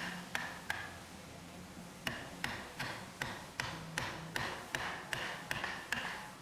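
Hammering in a woodshop: three quick strikes near the start, then after a short pause a steady run of strikes at about two and a half a second, each with a short metallic ring.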